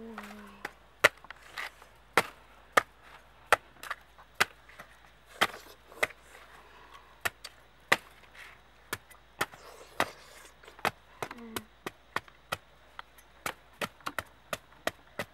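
A large cleaver-like knife chopping into the thick fibrous husk of a palm fruit. It lands as a quick, irregular series of sharp chops, about one and a half a second.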